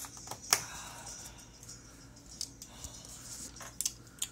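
A few sharp clicks and knocks from a plastic cup of iced coffee being handled on a tabletop. The sharpest comes about half a second in, and a quick cluster comes near the end.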